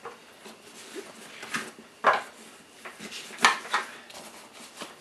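Camera gear being handled: small items set down on a wooden tabletop and a nylon camera backpack being rummaged, giving scattered clicks and knocks, the loudest about three and a half seconds in.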